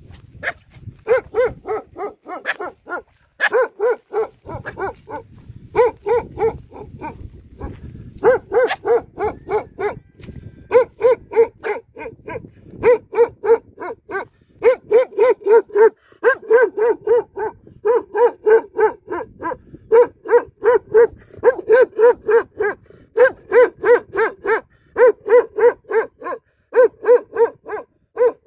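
Dog barking over and over in quick runs of short, evenly spaced barks, about three a second, broken by brief pauses.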